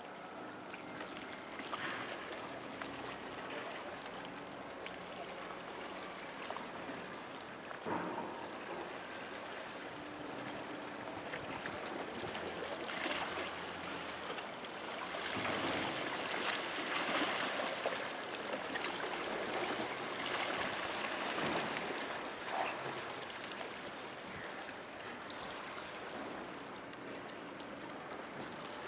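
Harbour water washing and lapping against a rock breakwater, a steady wash that swells louder for several seconds midway, with a faint low hum underneath.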